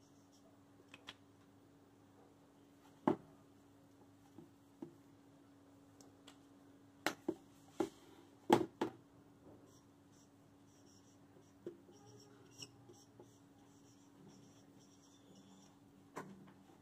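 Marker writing on a whiteboard: faint scratchy strokes, with a few short sharp knocks and taps scattered through, over a steady low hum.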